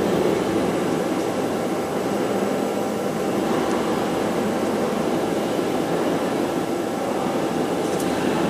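Steady machine noise, a continuous rumble and rush, with a faint click near the end.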